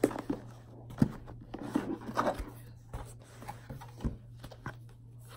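A cardboard gift box being opened by hand: the ribbon is pulled loose, the lid lifted and the wrapping inside rustles, with a couple of light knocks.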